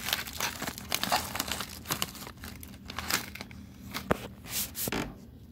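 Small plastic Cheez-It snack bag crinkling as fingers tear it open, a rapid run of sharp crackles that stops about five seconds in.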